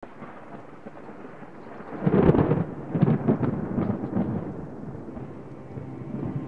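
Thunder: a loud clap about two seconds in, followed by rolling rumbles that die away.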